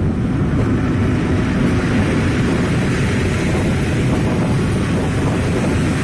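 Locomotive-hauled passenger train passing close at speed: a steady, loud rumble and rush of the coaches' wheels on the rails.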